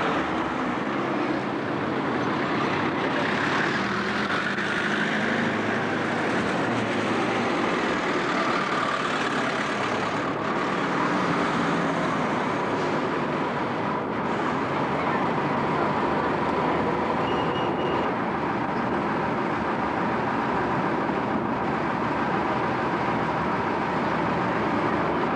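Street traffic with buses driving past: a steady mix of engine and tyre noise.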